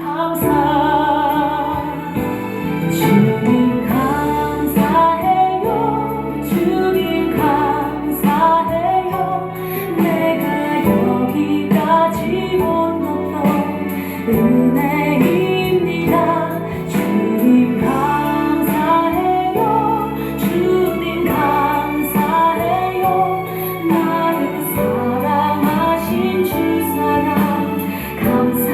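Worship song: a woman singing with guitar accompaniment.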